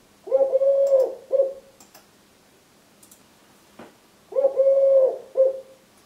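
Male Eurasian collared dove cooing twice from the nest, each phrase a long low coo followed by a short one: his nest song, the 'please lay eggs' call urging a mate to lay.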